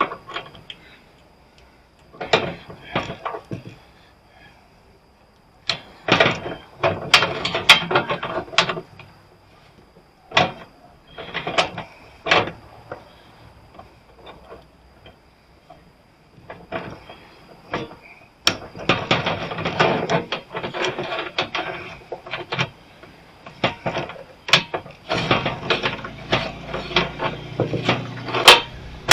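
Hand ratchet wrench clicking in several runs of quick clicks with short pauses between, as fasteners are worked loose.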